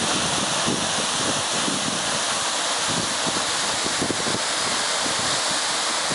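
Steady rush of a waterfall, two falls plunging from a rock face into a pool, as a continuous even hiss. Irregular low rumbles of wind on the microphone run through it.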